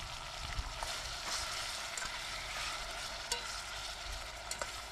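Vegetables sizzling and frying in hot oil in a pot, a steady crackling hiss, with a few sharp clicks near the end.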